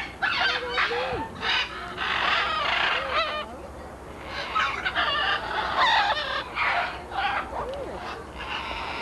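Parrots and macaws squawking: a string of harsh, raucous calls with a short lull in the middle.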